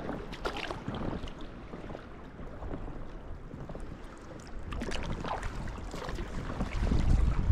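Sea-kayak paddling: the paddle blades dip and splash in the sea and water washes against the folding kayak's hull in uneven bursts. A low wind rumble on the microphone swells near the end.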